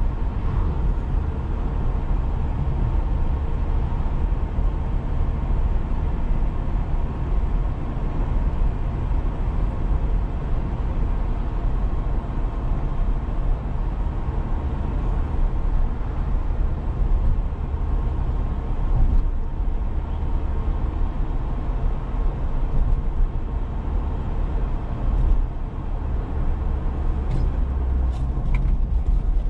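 A 2001 Suzuki Jimny 1.3 being driven on the road, its engine and road noise making a steady, even rumble.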